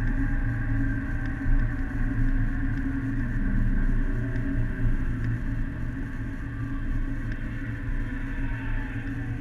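Steady engine and road noise inside a car's cabin while cruising on a highway, with faint tones slowly falling in pitch.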